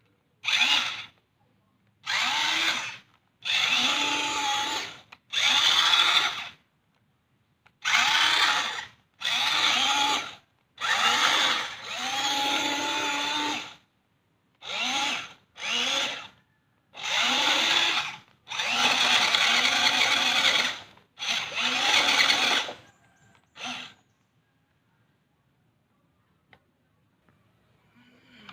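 Handheld power tool run in about fourteen short bursts of half a second to two seconds, its motor rising in pitch as each burst starts. The bursts stop about four seconds before the end.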